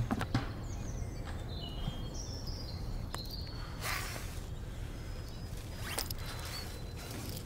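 Short bird chirps in the first half, then a steel tape measure's blade being pulled out about four seconds in, with a second, smaller pull about two seconds later.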